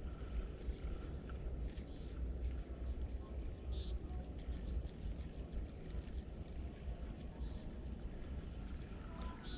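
Steady, shrill chirring of insects such as crickets, with a few short high chirps on top and a fluctuating low rumble underneath.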